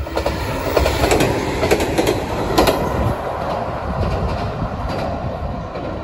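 JR Kyushu electric train running over a steel girder bridge: a steady running noise, with sharp clicks of the wheels over rail joints in the first few seconds.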